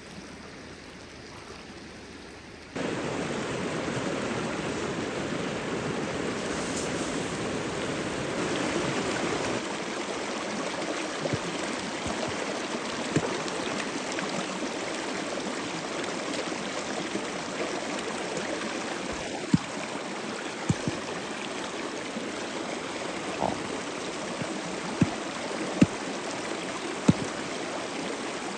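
Steady rush of flowing stream water, fainter for the first few seconds and then suddenly louder, with a few scattered sharp clicks in the later part.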